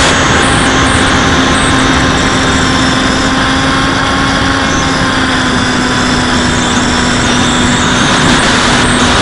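Brushless electric motor and pusher propeller of a Bixler foam RC plane running at a steady drone, recorded from on board in flight, over a constant rush of air.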